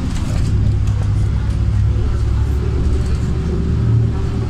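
Cabin noise of a LiAZ 5292.67 city bus under way: the low, steady drone of its YaMZ-53624 compressed-natural-gas engine and road rumble. A steady higher tone joins about halfway through.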